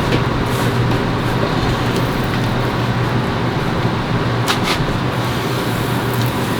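Steady mechanical hum and rushing noise, with a few light clicks about two thirds of the way in.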